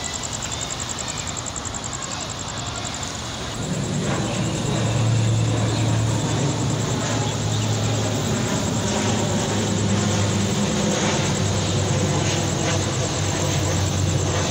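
Indian Railways LHB passenger coaches rolling past on the track, wheels running on the rails. About four seconds in, the sound grows louder and a steady low hum sets in.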